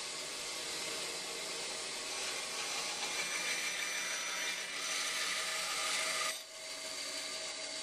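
Bandsaw running with a steady hum while its blade cuts a slot into the end of a 3/4-inch maple dowel. The cutting noise grows louder about three seconds in and stops abruptly a little after six seconds.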